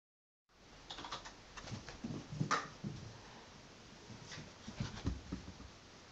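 A small Pomeranian–Chihuahua mix dog scampering about on carpet: scattered light clicks and soft thumps, irregular, with the sharpest one about two and a half seconds in.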